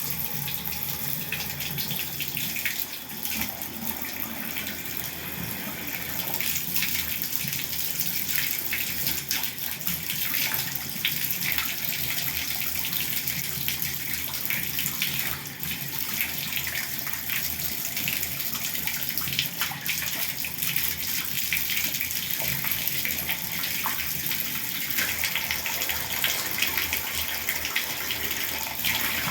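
Shower water running in a steady, continuous spray, with many small splashes.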